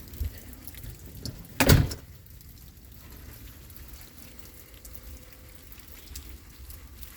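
Steady rain falling, with a single sharp, loud knock about a second and a half in and a softer thump just before it.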